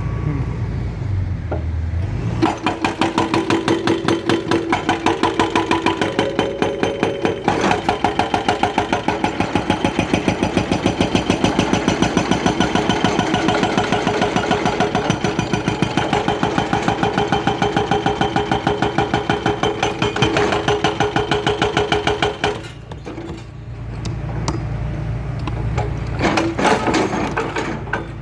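Hitachi Zaxis 210LC excavator's hydraulic breaker hammering asphalt with rapid, even blows over the diesel engine. The hammering stops for a few seconds with the engine still running, then starts again briefly near the end.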